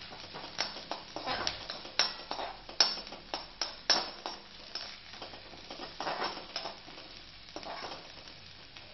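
Spoon stirring and scraping chopped onion, ginger, green chili and turmeric in a pan of hot mustard oil: irregular clicks and scrapes of the spoon on the pan over a steady frying sizzle. The stirring tapers off near the end.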